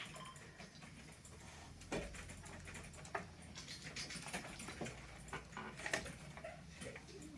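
Faint, irregular clicks and light taps, about six of them spread through a few seconds, over a low steady hum.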